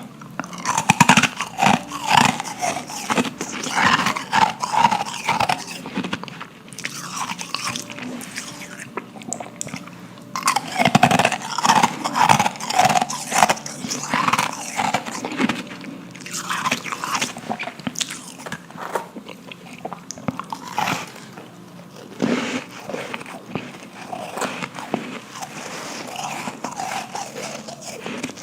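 Close-miked biting and crunching of powdery ice, with dense crackling bites in bursts and softer chewing crunches between. The loudest bursts come about a second in and about eleven seconds in.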